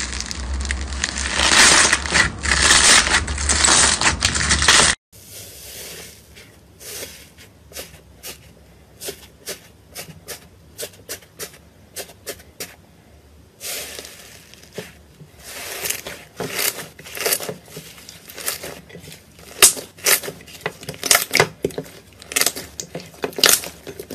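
Hands squeezing crunchy orange bead slime: a dense crackling crunch that stops suddenly about five seconds in. Then hands pressing and kneading blue fluffy slime, with many small sticky pops and clicks that come thicker in the second half.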